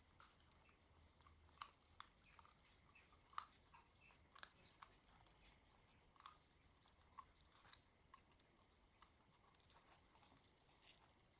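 Puppies chewing raw chicken pieces with bone and cartilage: faint, irregular crunches and clicks, with the strongest bites in the first half.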